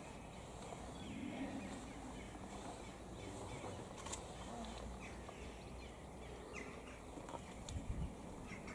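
Quiet outdoor ambience with a few short bird calls scattered through it, and a sharp click about halfway through and more clicks near the end.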